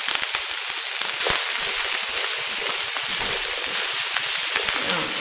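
Chopped zucchini, onion and cabbage sizzling in a tabletop electric pan as they are stirred with a silicone spatula, with one sharp knock about a second in.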